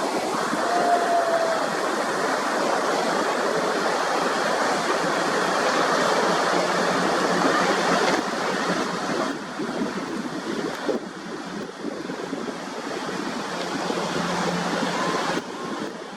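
Steady rush of water, loud and even, easing off somewhat about halfway through.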